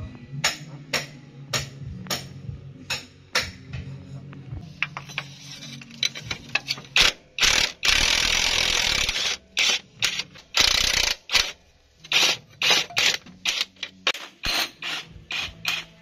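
Ratchet socket wrench working a bolt: the pawl clicks in strokes, about two a second. Around the middle it breaks twice into a second-long run of rapid, continuous ratcheting.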